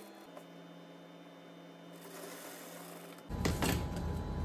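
Electric sewing machine: a steady motor hum that drops slightly in pitch just after the start, then a little over three seconds in the machine starts stitching with a much louder, fast rhythmic clatter.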